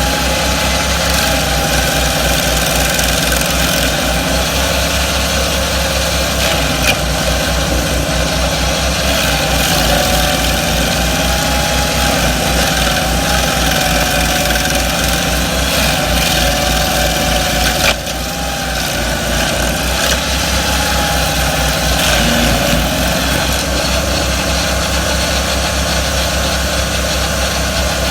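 Twin-engine stump grinder, both engines running steadily as it grinds a stump, with a wavering whine over the engine drone. A sharp knock about 18 seconds in, after which the level dips briefly and recovers.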